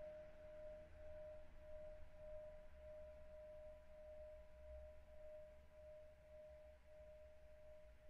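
A faint, steady, pure ringing tone held throughout, wavering slowly in loudness, like a sustained singing-bowl drone, over a low hum.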